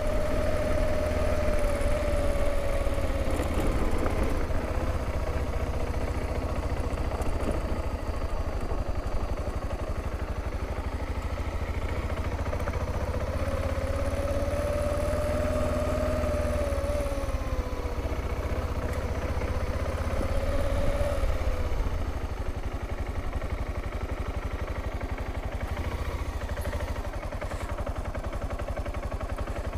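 BMW G650GS single-cylinder motorcycle engine running as the bike rides along. Its note dips and recovers a couple of times with the throttle, then eases to a lower, quieter note after about 22 seconds as the bike slows onto a dirt track.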